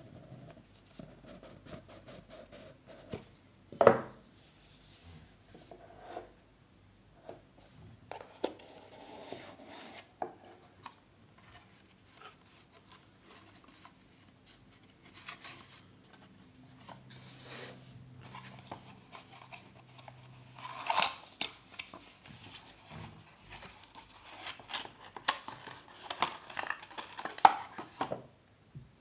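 Packaging of a Xiaomi Mi Band fitness band being handled and opened: scattered clicks, taps and rustles, with a sharp knock about four seconds in and a busier run of rustling and clicks near the end.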